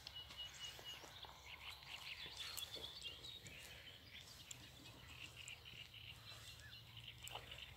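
Faint birdsong: many short, high chirps scattered throughout, over a low steady hum.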